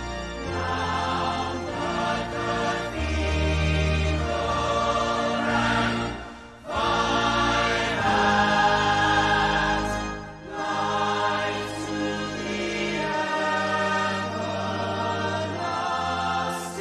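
Ensemble of voices singing a chorus from a stage musical over an orchestral backing with a sustained bass, the sound dipping briefly twice between phrases.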